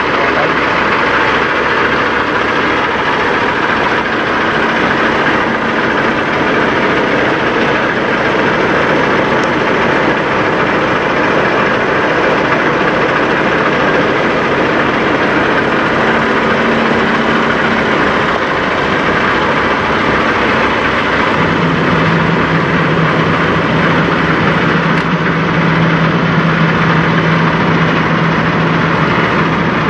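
Heavy diesel semi-truck engine idling steadily. A low hum joins about two-thirds of the way in and holds to the end.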